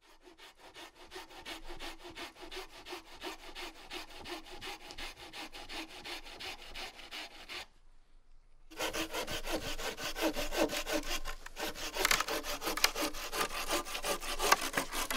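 Bahco Laplander folding saw cutting through wood by hand, in quick, even back-and-forth strokes. The strokes stop for about a second some eight seconds in, then carry on louder and closer.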